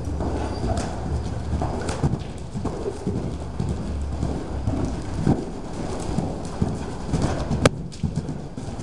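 Hoofbeats of a paint horse cantering loose on the dirt footing of an indoor arena, a string of low thuds. One sharp click stands out near the end.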